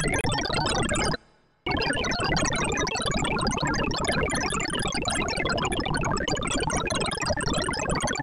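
Sorting-algorithm visualiser's synthesized tones: a dense, rapid flurry of short beeps at scattered pitches, each tied to the value of the array element being touched. The array is shuffled, then, after a half-second pause a little over a second in, sorted by Stackless Timsort.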